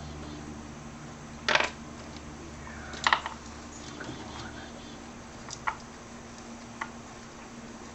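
Metal bolts and hand tools clinking against metal in four short separate clicks, the loudest a double clink about a second and a half in, with a steady low hum underneath.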